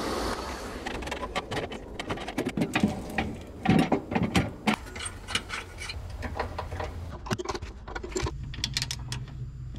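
Irregular metallic clicks and knocks of hand tools and metal parts being handled while working on an RV landing gear jack, after a short rustle at the start. A low steady hum comes in near the end.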